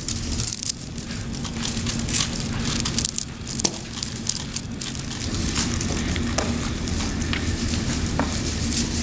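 Dense, rapid clicking and clacking of Rubik's cubes being turned fast, a steady crackle of many small plastic clicks over a low hum.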